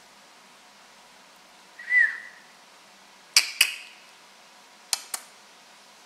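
African grey parrot giving one short whistle that rises and falls, followed by two pairs of sharp clicks about a second and a half apart.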